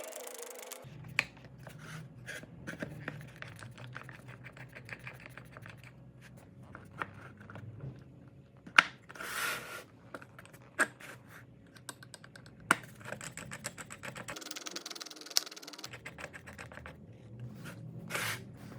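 Wooden pieces and a woodworking clamp being handled: a run of light clicks and taps, with a few sharper knocks and short scrapes.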